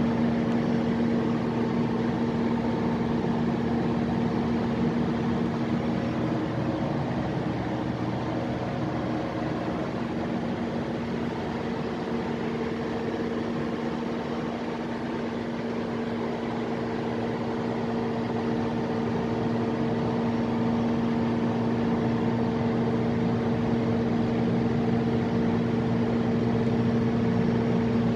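Large Mitsubishi diesel engine of a Kohler generator set running at a constant speed: a steady, even hum over a broad rushing noise that does not change.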